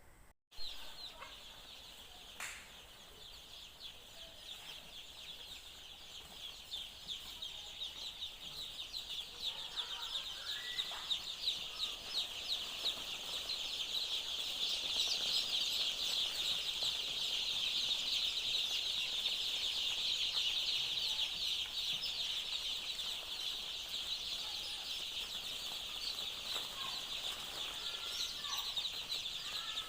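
A brooder full of layer chicks peeping together: a dense chorus of high, rapid peeps that grows louder over the first half and then holds steady.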